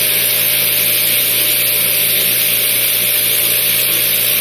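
Vacuum pump of a Eurostar 70x70 thermoformer running steadily, pulling vacuum under the plastic sheet during the vacuum stage of a forming cycle. A constant low hum sits under an even hiss.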